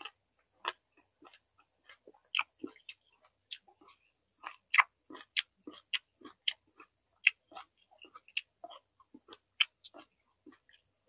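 Close-miked chewing of roasted vegetables: irregular wet crunches and mouth clicks, a few each second.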